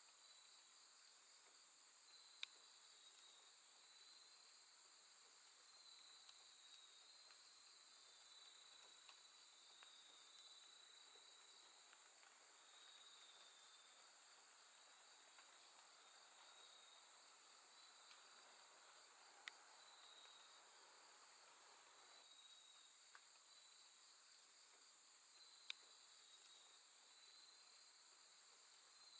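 Grass insects singing on a late-summer night, faint: a steady high trill over a lower wavering tone, with groups of sharper, higher chirps coming in a few seconds in and again near the end. Three short ticks stand out.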